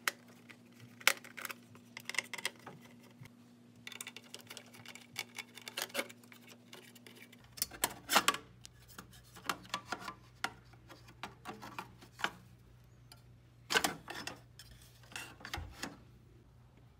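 Screwdriver turning out the screws of an oscilloscope's metal fan mounting and the fan assembly being handled and lifted out: irregular small metallic clicks, scrapes and clinks, with a few louder knocks.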